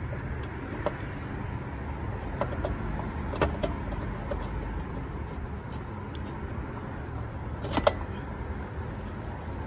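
Throttle body being worked loose by hand and pulled off its intake manifold studs: a few light metal clicks and knocks, the loudest near the end as it comes free, over steady background noise.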